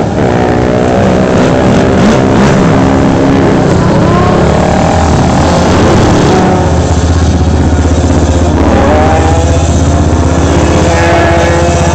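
Several quad (ATV) engines revving and passing, their pitch rising and falling as the riders throttle up and ease off.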